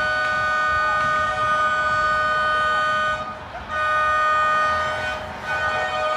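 Car horns sounding in long, steady held blasts, with two short breaks, about three seconds in and again just after five seconds.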